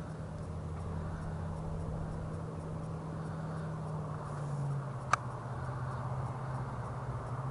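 Handling noise from a camera being adjusted on a tripod mount, with one sharp click about five seconds in, over a steady low hum.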